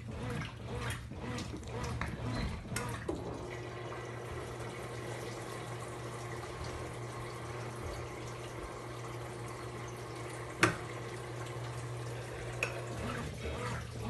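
A Consul Facilite CWG11 top-load washing machine running, with water splashing in the tub. About three seconds in, a steady machine hum sets in and holds. There is a single sharp knock about ten and a half seconds in.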